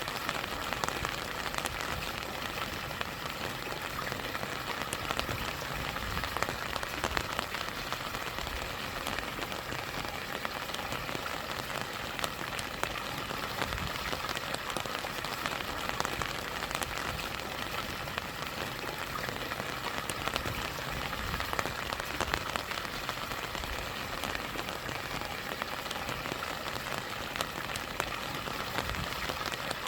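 Steady rain falling on a rushing stream, with many small drop ticks over the even wash of water.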